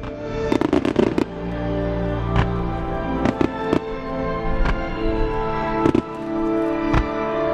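Aerial firework shells bursting over steady music: a rapid run of bangs about a second in, then single bursts every second or so.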